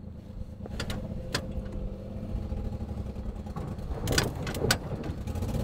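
Mini truck's small engine running and pulling away under load, nearly stalling but kept running. A few sharp clicks and knocks sound over it, about a second in and again near the end.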